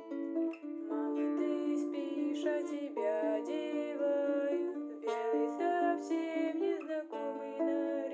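Acoustic guitar playing the tune, plucked melody notes over ringing chords.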